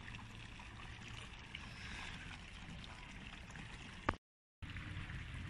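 Steady outdoor street background noise with a low hum of traffic. About four seconds in, a sharp click is followed by half a second of dead silence, then the background noise returns.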